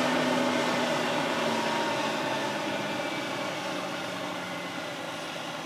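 Vehicle engine running: a steady drone with a low hum that sags slightly in pitch as it slowly fades.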